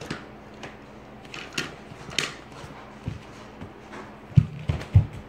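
Irregular knocks and clicks, then two heavy thumps about half a second apart near the end, which are the loudest sounds.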